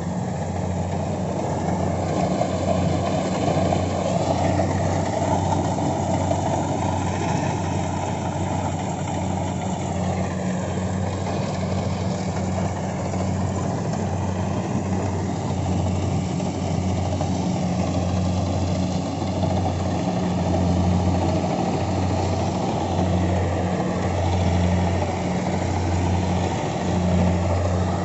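Kubota DC68G Harvesking crawler combine harvester running under load as it cuts and threshes a standing grain crop: a continuous low diesel engine drone with machinery noise over it, throbbing unevenly in the second half and growing a little louder near the end as the machine comes close.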